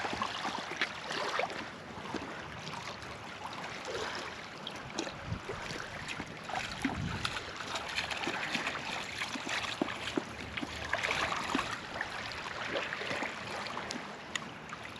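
Lake water lapping and splashing at the shoreline: a steady wash of water noise scattered with small splashes and ticks.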